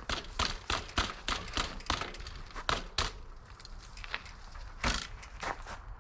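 Mountain bike clattering over rough ground: irregular sharp knocks and rattles, several a second, easing off briefly a little past the middle.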